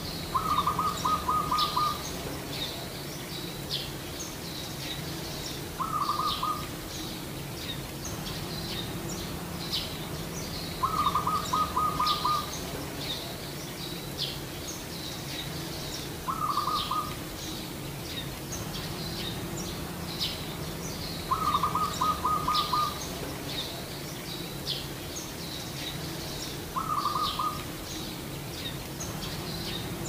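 Zebra dove (perkutut) giving its rapid staccato trilled coo: six short phrases about five seconds apart, alternately longer and shorter. Small birds chirp steadily in the background over a low hum.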